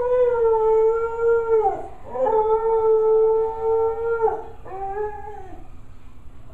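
Dog howling: two long, steady howls that each drop in pitch at the end, then a shorter, lower one. The owner takes the howling for sadness.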